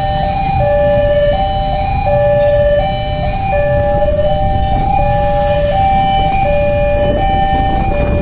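Railway level-crossing warning alarm sounding: an electronic two-tone signal alternating steadily between a higher and a lower tone, each held a little over half a second, warning that a train is approaching. A rumble of road traffic runs underneath.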